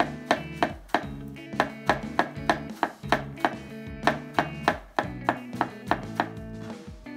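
Chef's knife chopping green onions on a bamboo cutting board: quick, even taps, about three a second. Background music plays throughout.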